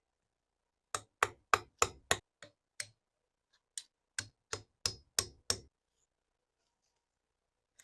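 Hammer tapping in two quick runs, about three sharp strikes a second, seven in the first run and six in the second after a short pause.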